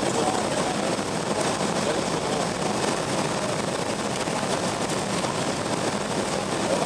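Steady cabin noise inside a BAe Avro RJ85 airliner on its approach: an even rushing of airflow mixed with the hum of its four Lycoming LF507 turbofan engines, holding at one level.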